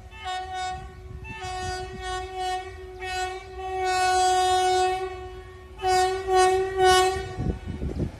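A train's horn sounding in a series of short blasts with one longer held blast in the middle, over the low rumble of the train. Near the end the horn stops and a loud rushing noise sets in as the train reaches the microphone.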